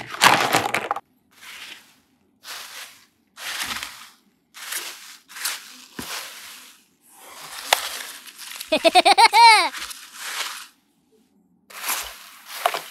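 A run of short crunching, crackling noises, about one every second, with a brief squeaky, warbling sound effect that rises and falls about nine seconds in.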